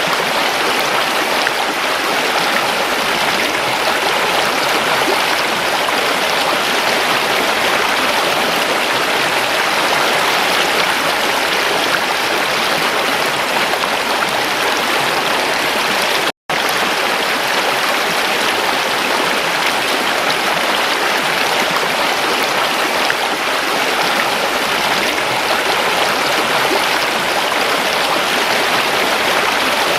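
Steady rush and babble of flowing stream water, even throughout except for a split-second dropout to silence a little over halfway through.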